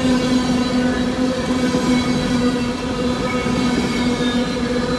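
Freight train cars rolling past close by: a continuous rumble and rattle of steel wheels on the rails, with a steady droning tone running through it.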